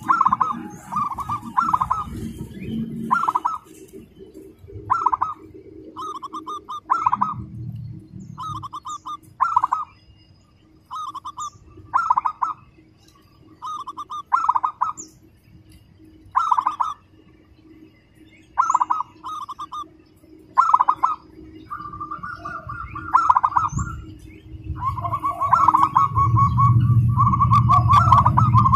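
Zebra dove (perkutut) cooing: short bursts of rapid, tightly spaced trilled notes repeated every second or two, the fast 'sewing machine' delivery. Faint chirps of small birds behind, and a low rumble comes up near the end.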